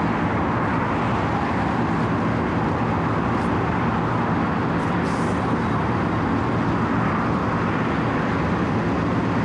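Wirtgen W 120 CFi cold milling machine at work: its diesel engine running steadily under load while the cutting drum grinds the asphalt, a constant heavy drone with no let-up.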